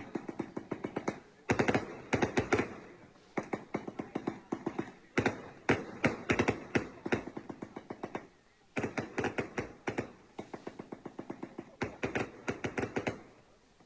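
Firecrackers going off in rapid strings of sharp pops, about six separate bursts each lasting one to two seconds, with short gaps between them.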